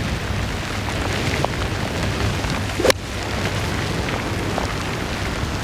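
Steady rush of wind and rain with a low rumble of wind on the microphone. About three seconds in comes a single sharp click of a golf club striking the ball off a bare lie.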